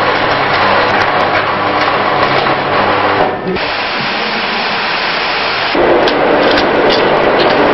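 Handheld angle grinder running steadily against steel for about three seconds, cutting off abruptly. Loud, steady machinery noise follows, rising at about two-thirds of the way through, with small clicks over it.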